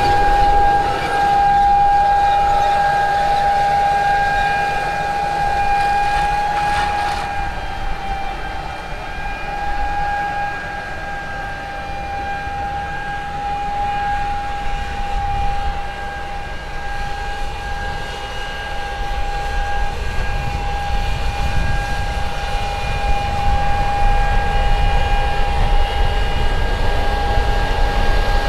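Fendt 1050 tractor pulling a John Deere N530C air seeder at work: a steady high whine holds throughout over a low rumble that grows louder in the last third.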